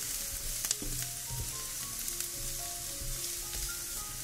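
Chopped onion and ginger sizzling in hot oil in a nonstick frying pan, stirred with a silicone spatula. A couple of light scrapes and knocks from the spatula come in the first second and a half.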